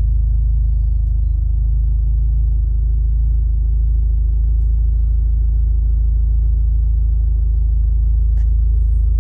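Mitsubishi Galant VR4's turbocharged 4G63 inline-four idling steadily, a low, even rumble, freshly running again after a rebuild.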